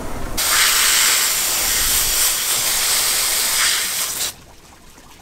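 Garden hose spray nozzle jetting water onto a cleaned blue claw crab and the cleaning table, rinsing out the guts. The hiss starts about half a second in and cuts off suddenly after about four seconds.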